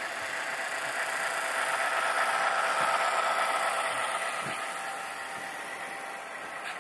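HO-scale Santa Fe diesel locomotive's sound decoder playing a diesel engine running, mixed with the rolling of the model freight cars on the track. It grows louder toward the middle as the train passes close, then eases off.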